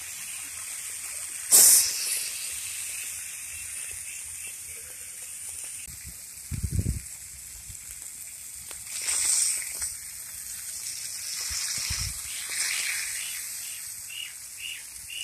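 Masala-coated fish sizzling as it fries on a black iron griddle, with a metal spatula scraping and knocking against the pan. A sharp clank about a second and a half in is the loudest sound, and two dull low thumps come later.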